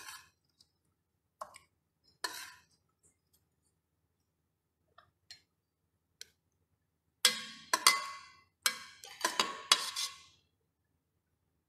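A metal ladle clinks and scrapes against a stainless-steel pressure cooker pot while scooping out braised pork ribs. There are a few faint clinks at first, then a cluster of louder ringing clinks about seven to ten seconds in.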